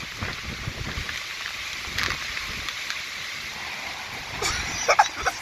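Hurricane-force wind and driving rain making a steady, rushing hiss, with gusts buffeting the microphone. Near the end come a few short, high cries that bend in pitch.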